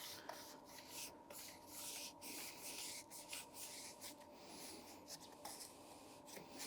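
Hands rubbing and scuffing against a stiff motorcycle tire in irregular strokes, roughly two a second, over a faint steady hum.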